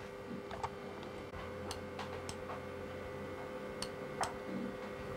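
Computer mouse clicking: about half a dozen sharp, irregularly spaced single clicks while a web page is browsed, over a steady low hum.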